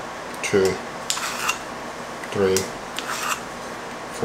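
A metal teaspoon scooping and scraping in a can of baking powder, scraping about every two seconds as each spoonful is dug out and leveled. Between the scrapes come two short low sounds from a man's voice.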